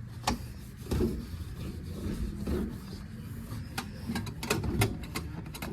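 Scattered sharp clicks and knocks over a low rumble: snack packages and the trays of a snack vending machine being handled during restocking.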